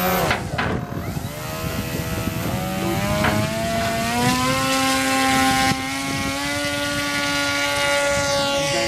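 Radio-controlled floatplane's motor and propeller whining as it throttles up for its takeoff run across the water. The pitch wavers at first, climbs in steps, then holds steady as the plane lifts off and heads away.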